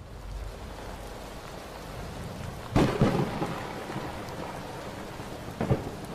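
Thunderstorm sound effect: steady rain with a loud thunderclap and rumble about three seconds in, and a second, shorter crack of thunder near the end.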